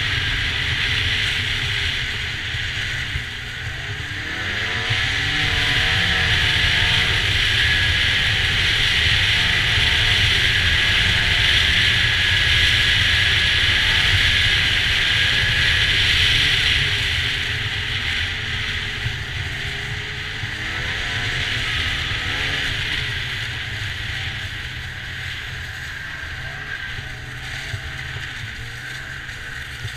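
Snowmobile engine and track running under way, the engine pitch wavering up and down with the throttle; louder through the middle, then easing off in the later part.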